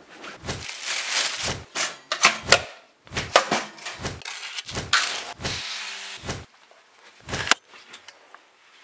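A quick run of household handling noises, knocks, clicks and rustling, with a short steady buzz about five and a half seconds in. It goes quiet after a last sharp knock near the end.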